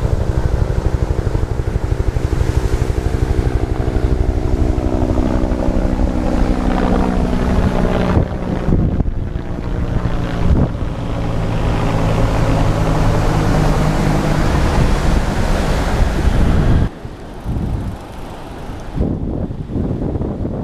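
An engine running steadily, its pitch shifting a little, with wind buffeting the microphone. It stops abruptly about 17 seconds in, leaving wind noise.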